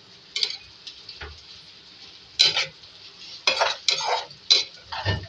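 Slotted metal spoon stirring and scraping okra in a metal pan, about seven short scrapes, most in the second half, over a faint steady sizzle of frying.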